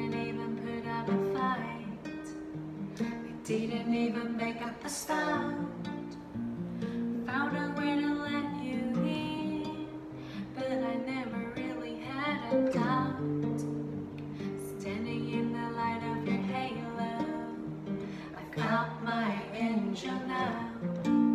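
A woman singing a slow pop ballad to a nylon-string classical guitar that is strummed and picked in accompaniment.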